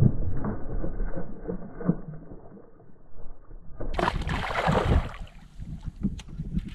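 Water sloshing and lapping against a fishing boat's hull in irregular knocks, with a brief, louder rush of noise about four seconds in.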